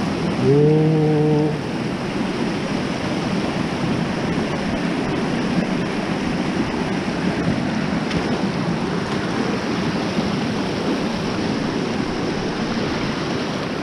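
Fast-flowing mountain stream rushing over rocks close by, a steady loud rush of water. A short vocal sound from a man comes about a second in.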